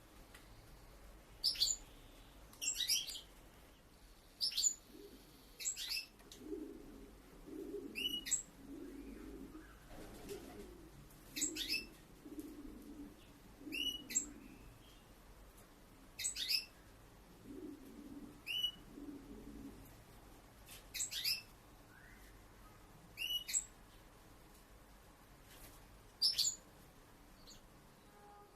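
Caged finches calling: short, high chirps that fall in pitch, one every second or two. A faint low murmur joins them in the middle stretch.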